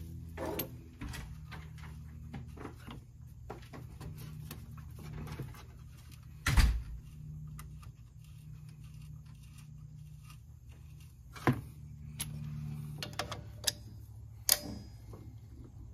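Scattered metal clinks and knocks from hand work on a truck's front suspension, with one heavy thump about six and a half seconds in, over a steady low hum.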